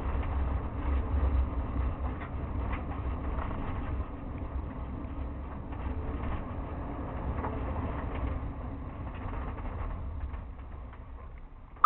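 Patrol vehicle driving fast down a dirt road: a steady low rumble of engine and tyre noise, heard from inside the cabin. A single sharp click comes right at the end.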